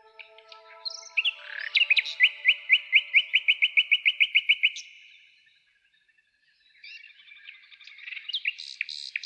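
Songbird singing: a fast, even series of repeated chirps, about five a second, breaking off about five seconds in. Another song phrase starts near the end.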